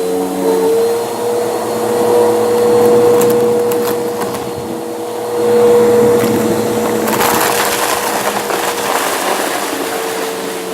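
Bissell vacuum cleaner running with a steady motor whine while its brushroll crunches and crackles over debris. The crackling gets louder and brighter about seven seconds in.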